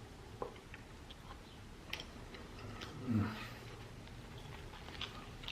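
Quiet eating sounds: a few soft mouth clicks and chewing, with a brief low murmur about three seconds in.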